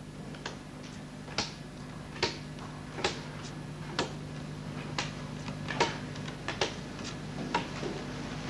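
Light, sharp clicks or taps, roughly one a second and slightly irregular, over a steady low hum from the soundtrack.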